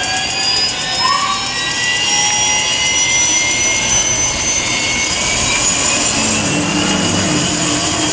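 Turbine start-up sound from a scale RC helicopter's sound-effect module: several whining tones rising slowly and steadily in pitch, with a low hum joining about six seconds in.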